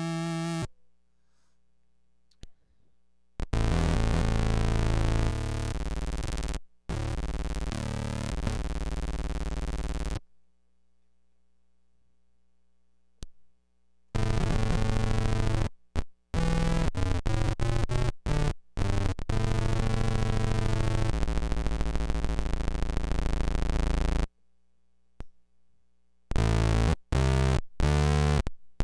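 Electric guitar played through a hand-built circuit-bent noise pedal on its synth-like "crazy" effects: thick, beefy electronic tones that cut in and out abruptly, with silent gaps between. Some passages stutter in rapid chopped pulses, and the pitch swoops about eight seconds in.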